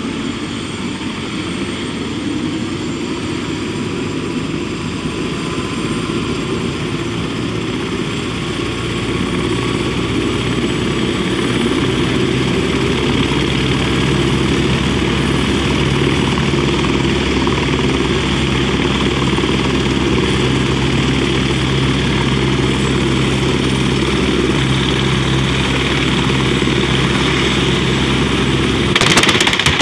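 Helicopter idling on the ground with its rotor turning: a steady rotor beat with a high turbine whine, growing louder partway through. About a second before the end comes a sudden loud clatter as the turning main rotor strikes a truck.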